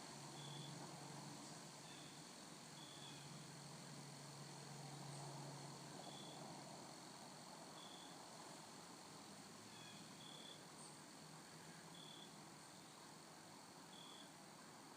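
Faint outdoor quiet with a short high chirp repeated every second or two, likely a small animal such as an insect, over a steady faint hiss. A faint low hum runs through the first few seconds.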